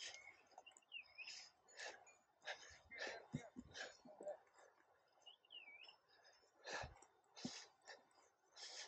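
Faint footsteps crunching on a stony dirt trail, irregular and a little under a second apart, with two short high chirps that dip and rise, one about a second in and one about halfway.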